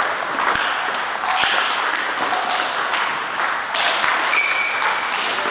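Table tennis rally: a celluloid ball clicking off paddles and the table in short sharp strokes over a steady background of hall noise.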